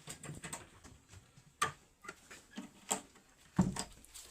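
Bamboo being handled and worked: scattered light clicks and taps, with three louder knocks about one and a half, three and three and a half seconds in.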